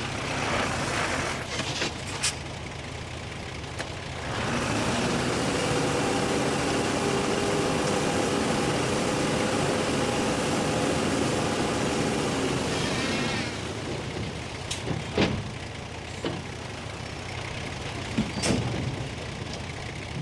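Heavy diesel earthmoving machinery running. About four seconds in the engine picks up to a louder, steady higher run, then drops back near thirteen seconds. There are a few short sharp knocks or hisses in the quieter stretches.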